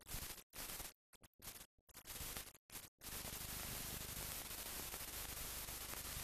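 Recording hiss with no other sound in it, cutting in and out in short blocks at first, then running steadily from about halfway through.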